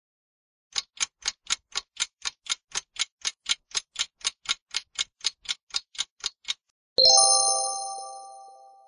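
Quiz countdown-timer sound effect: a clock ticking about four times a second for nearly six seconds. It is followed by a bright multi-tone chime that rings out and fades, marking the reveal of the correct answer.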